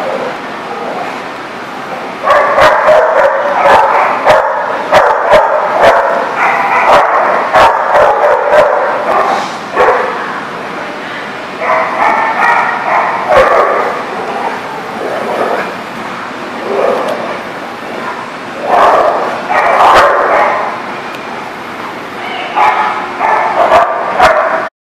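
Dogs barking and yipping during rough play. The calls come in several bursts: a long run in the first third and shorter runs later on.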